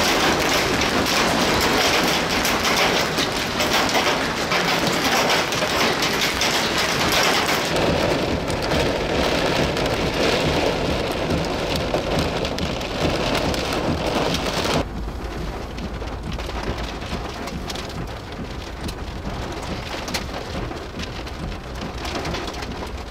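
Large hailstones pelting gravel and grass: a dense, steady hiss thick with sharp clicks and ticks of stones hitting the ground. About fifteen seconds in it cuts abruptly to a quieter, duller hiss with a low rumble.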